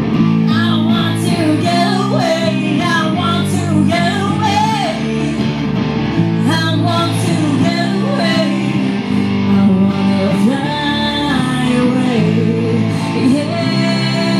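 Live rock band playing. A woman sings into a microphone over electric guitar played through a Marshall amplifier stack, with bass guitar and drums.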